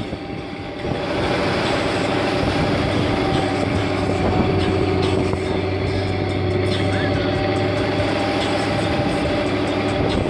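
Boat engine running steadily at speed, with water rushing and splashing along the aluminium hull as it cuts through choppy waves. The sound grows louder about a second in.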